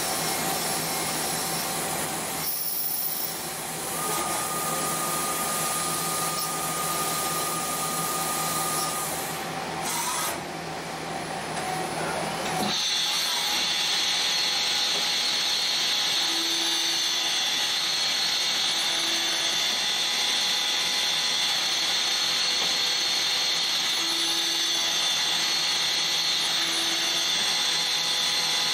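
CNC lathe machining a brass part: a steady machining whir and hiss, with a brief high steady tone a few seconds in. About halfway through the sound shifts to a steadier, higher-pitched whine.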